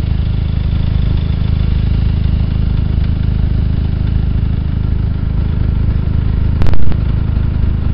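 Snowmobile engine idling steadily, with a brief loud knock near the end.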